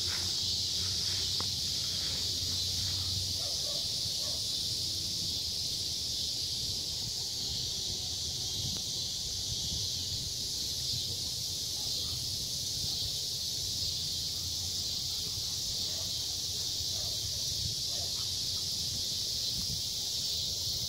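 Steady high-pitched chorus of insects.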